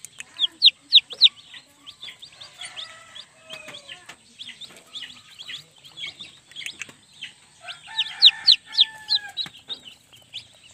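Young chicks peeping over and over in short, high, falling chirps from under a brooding hen, with a few lower clucking calls from the hen in between. The peeping is loudest just after the start and again about eight seconds in.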